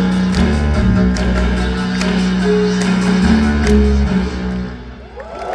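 Live synth-pop band playing the last bars of a song over a steady bass line. The music stops a little before the end and the crowd starts to cheer.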